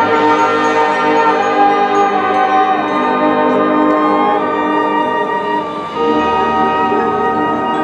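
High school marching band playing slow, held chords, changing chord about six seconds in.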